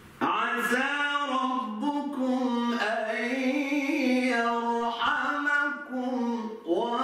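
A man reciting the Quran in a melodic, chanted style, holding long ornamented notes. One phrase begins just after the start and runs about six and a half seconds; after a brief break near the end the next phrase begins.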